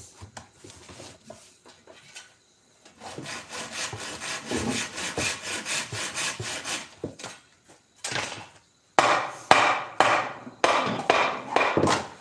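A wooden furniture frame being rubbed down by hand: a quick run of short scraping strokes, then about six longer, louder back-and-forth strokes near the end.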